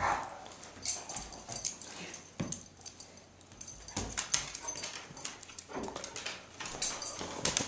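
Two dogs play-wrestling: short whimpers and yips, with a few scattered thumps and scuffles.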